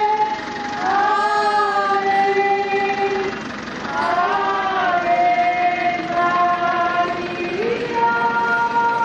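Voices singing a slow hymn in long held notes, the pitch stepping to a new note every second or two with small slides between.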